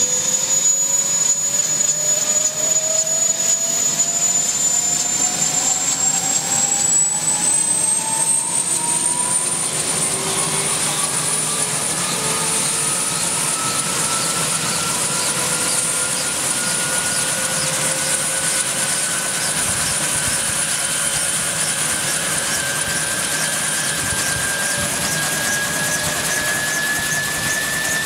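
Kaman K-MAX (K-1200) helicopter's turbine engine and intermeshing rotors running up for lift-off: a high turbine whine climbs in pitch over the first ten seconds and then holds steady, while a lower tone keeps rising throughout.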